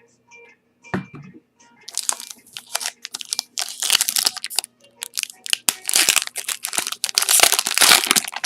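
A 2017 Bowman Chrome baseball card pack's wrapper being crinkled and torn open. One soft thump about a second in, then a dense crackling from about two seconds in, getting louder and busier near the end.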